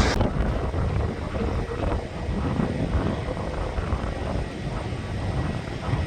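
Aircraft engine rumble with gusty wind buffeting the microphone. The sound steadies abruptly at the start.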